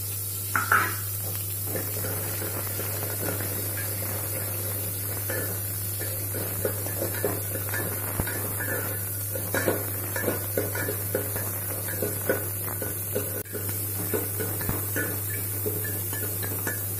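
A steel spoon stirring small onions frying in oil in a metal pot, clinking and scraping against the pot at irregular moments, with a louder clatter just under a second in, over a steady frying hiss and low hum.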